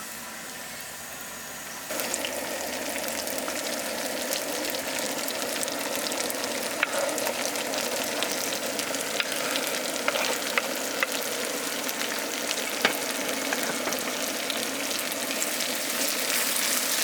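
Food frying in hot oil: a steady sizzle with many small pops and crackles, starting suddenly about two seconds in.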